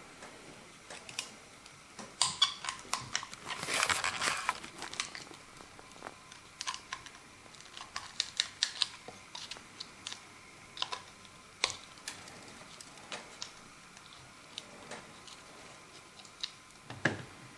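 Scattered small clicks and taps from a plaster dental model and hand tools being handled, with a short stretch of rustling and scraping about four seconds in.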